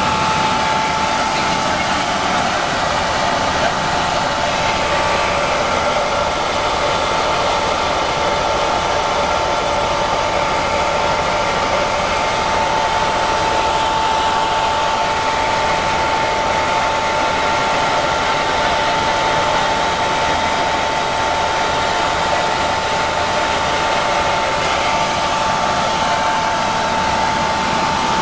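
Eurocopter EC130 helicopter's turbine engine and rotor heard from inside the cabin: a loud, steady rushing noise with a constant high-pitched whine.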